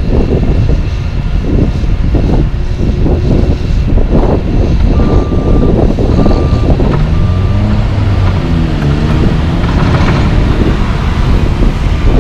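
Heavy diesel engines of a Caterpillar 262C skid steer and a dump truck running loudly, with a few thuds in the first few seconds. The skid steer's engine revs up and down a little past the middle as it works its raised bucket over the truck bed. A reversing alarm beeps about three times around the middle.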